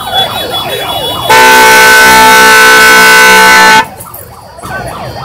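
A vehicle horn sounds one long, loud, steady blast of about two and a half seconds, starting just over a second in. Wavering tones can be heard before and after it.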